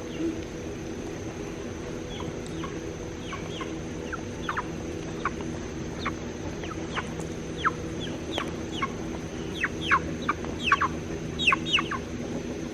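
Poultry peeping: many short calls that each slide downward, scattered at first and coming thicker and louder toward the end, over a steady low hum.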